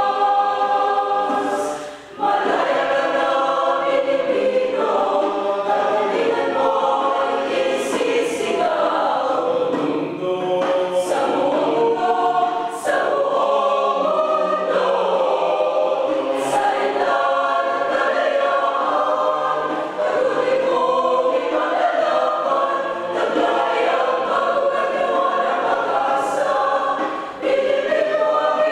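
Mixed choir of men and women singing in parts, the voices blending in harmony, with a brief breath pause about two seconds in.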